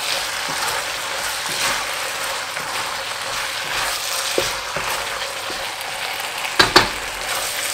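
Chicken, cashews and vegetables sizzling in a wok while a wooden spatula stirs and scrapes them through the sauce. A few short knocks break the steady sizzle, with one sharp knock, the loudest sound, near the end.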